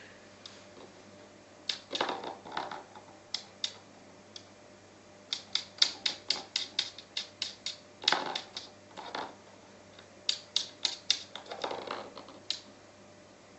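A small Maltese dog's claws ticking on a hard laminate floor and a horse chestnut knocking against it as the dog noses and carries the chestnut in its mouth. The clicks come in quick runs about halfway through and again near the end, with a few softer scuffing sounds between them.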